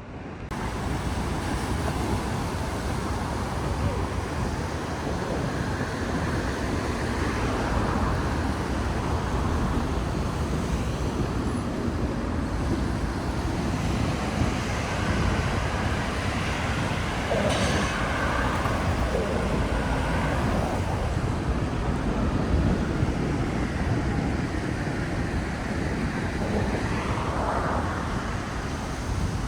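Steady rumble and noise of a moving vehicle, with faint squeals or tones rising over it a few times.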